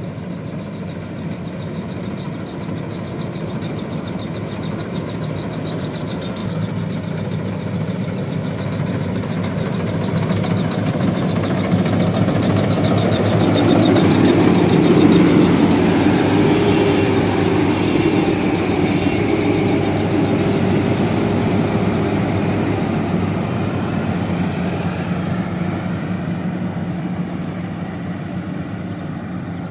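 FMWorld rice combine harvester cutting paddy, its diesel engine and threshing machinery running steadily. It grows louder toward the middle as the machine comes close, then fades as it moves away.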